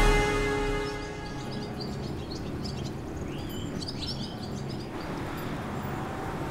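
A music sting fades out in the first second, then birds chirp over a steady low background noise.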